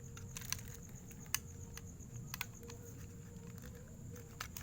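A few scattered light clicks and taps from handling a jigsaw while its newly fitted blade is checked for tightness, over a faint steady hum. The saw's motor is not running.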